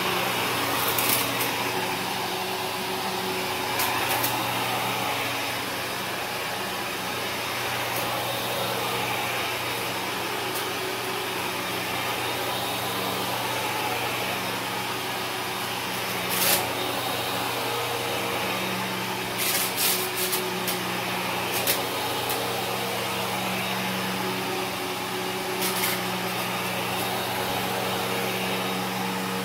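Kenmore upright vacuum cleaner running steadily on carpet, with scattered sharp crackles and clicks as debris is sucked up through the nozzle.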